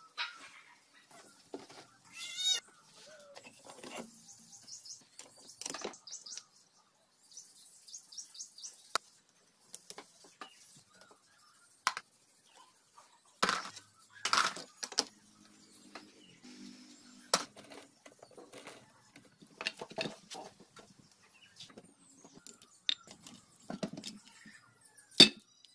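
Intermittent metal clinks and knocks of engine parts being handled as a Super Cup 100cc engine's crankcase and gearbox are taken apart, the sharpest one about a second before the end. Bird calls sound in the background, the clearest one about two seconds in.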